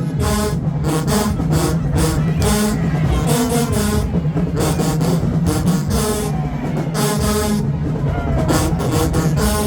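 Marching band playing: brass horns over a steady sousaphone bass line, with regular drum and cymbal hits about twice a second.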